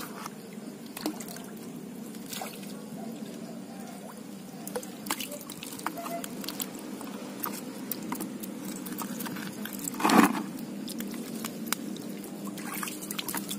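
A hand sloshing and sweeping through shallow water over gravel and stones while groping for shrimp, with small drips, trickles and pebble clicks, and one louder burst about ten seconds in.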